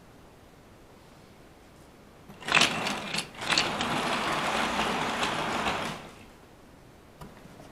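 Model railway train running along the track: the locomotive's small electric motor whirs and the wheels rattle on the rails, starting with a few clicks about two and a half seconds in and stopping about six seconds in.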